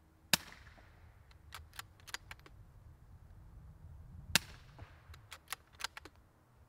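Two shots from a .22 LR Remington 597 rifle fitted with a TBA Peacemaker suppressor, about four seconds apart, each a sharp crack with a short ringing tail, metering around 114 to 116 dB. Fainter clicks fall between the shots.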